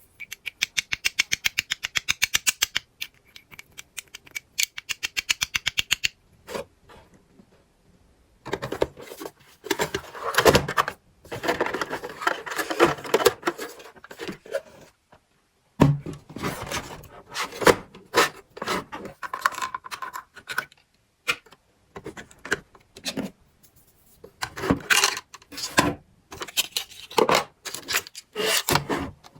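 Small plastic toys and packaging being handled: two runs of fast clicks, about a dozen a second, in the first six seconds, then irregular clattering and scraping of plastic pieces.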